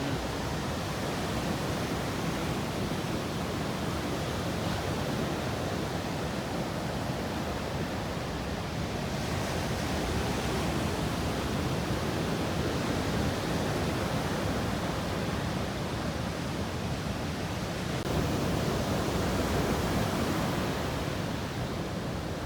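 Ocean surf breaking and washing in: a steady rushing noise that swells louder about midway and again near the end.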